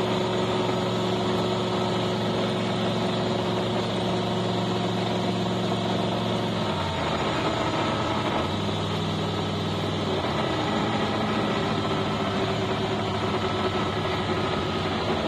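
Hot rod's engine running at a steady idle, its note shifting slightly about seven seconds in.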